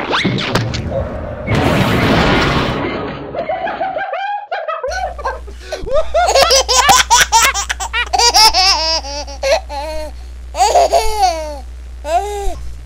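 A loud noisy rush for the first few seconds, then a voice laughing in quick, bending bursts over a low steady hum.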